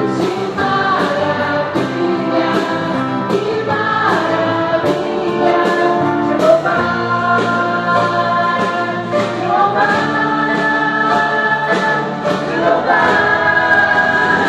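Gospel song with a choir singing long held notes over a steady drum beat.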